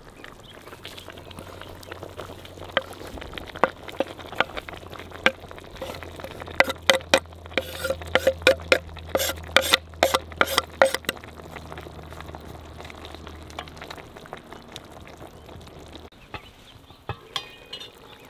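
Beef-and-vegetable stew simmering in a kazan over a wood fire, with a quick run of sharp knocks and scrapes in the middle as chopped herbs are pushed off a wooden cutting board into the pot.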